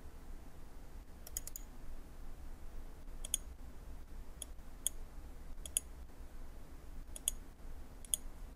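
Scattered sharp clicks from a computer mouse and keyboard as a dimension value is entered, about eight in all with a quick group of three near the start, over a faint low hum.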